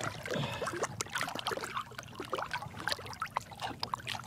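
Lake water splashing and trickling in small, irregular splashes around a hand holding a largemouth bass at the surface, as the fish is kept in the water before release.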